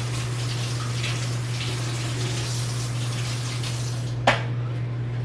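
Kitchen tap running as a knife is rinsed under it, a steady hiss of water, with one sharp metallic clank about four seconds in.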